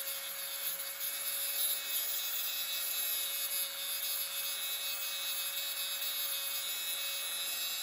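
Power tool grinding paint and body filler off an Austin Allegro's rusty steel wing and door bottom, running steadily with a constant whine underneath a high, rasping hiss.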